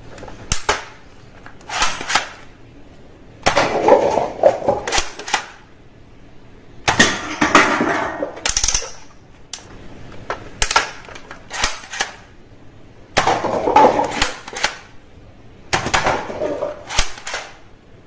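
Toy guns clicking and snapping as they are cocked and fired: irregular sharp clicks in clusters, some in quick runs, with short rattling bursts between them.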